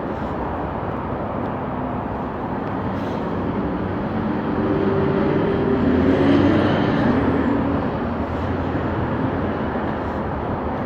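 Road traffic with a motor vehicle's engine passing close by. It grows louder toward the middle, about six seconds in, then eases off over the steady traffic noise.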